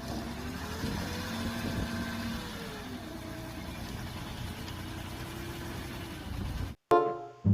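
Truck engine running steadily at low revs, with a faint tone that rises and falls once between about one and three seconds in. It cuts off abruptly near the end.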